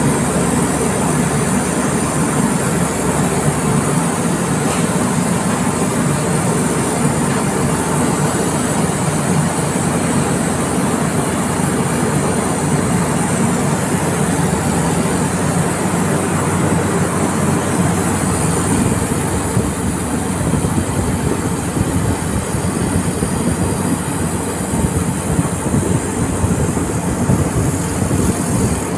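Handheld laser welding machine running as it welds a steel seam: a steady, loud mechanical hum under an even hiss, unbroken throughout.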